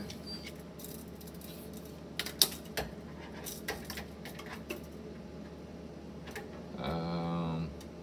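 Metal tape measure blade clicking and tapping against a refrigerator's wire shelf: a handful of sharp, scattered clicks, the loudest about two and a half seconds in. Near the end a person makes a short, steady voiced hum of about a second.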